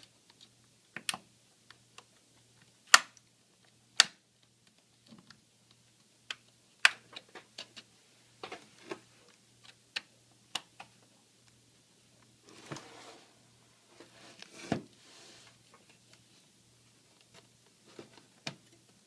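Irregular sharp clicks and snaps of plastic clips releasing as a laptop's plastic bottom case is pried apart with a sharp tool, the loudest two about three and four seconds in, with brief scraping of the tool along the plastic seam near the middle.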